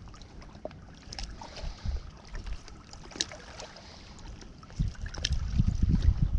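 Wind buffeting the microphone, with gusts building up near the end, and scattered faint clicks.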